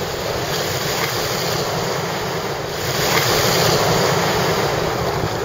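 Breaking surf rushing and hissing around sea kayaks, with wind buffeting the microphone; the wash swells a little louder about three seconds in.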